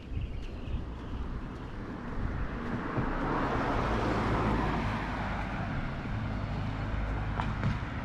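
A car driving past: its tyre and engine noise builds about two seconds in, peaks around the middle and fades away, leaving a low engine hum.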